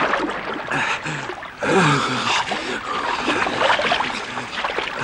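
Water splashing and churning heavily as two men struggle in it, with repeated short grunts and gasps that fall in pitch.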